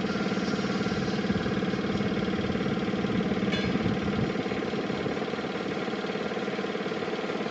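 An engine running steadily at idle, with a faint click about three and a half seconds in.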